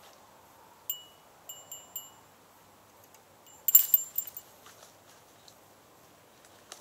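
Small bite-alarm bell on a fishing rod tip jingling in short bursts: a few light rings in the first two seconds, then a louder flurry a little before halfway, the sign of a fish pulling at the line.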